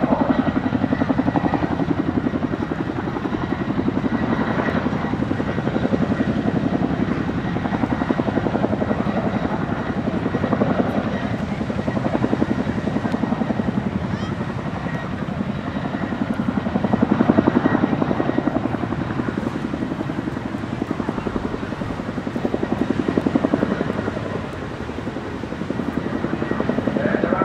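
RAF Boeing Chinook HC6A tandem-rotor helicopter flying, its twin rotors beating in a fast, even chop with a faint steady whine above it. The sound swells and eases in loudness every few seconds as the helicopter manoeuvres.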